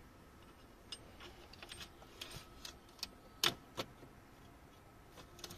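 Scattered light clicks and ticks of the metal oil dipstick on a Mercedes ML320 CDI knocking in its tube as it is wiped, pushed back in and drawn out to check the oil level, with two sharper clicks a little past the middle.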